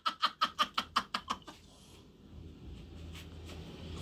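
A man's hearty laugh, a rapid run of short 'ha' pulses that grows fainter and dies out about a second and a half in, followed by a faint low rumble.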